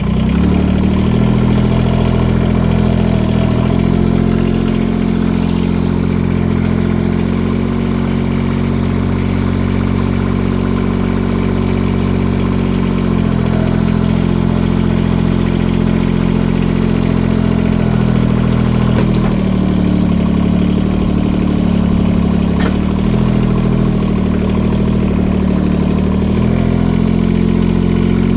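An engine running at a steady speed, its pitch shifting slightly up and down a few times.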